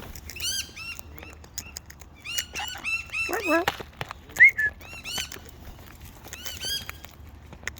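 Wild birds calling: bursts of short, quickly repeated chirps, with a lower sweeping call about three and a half seconds in and one loud sharp chirp soon after.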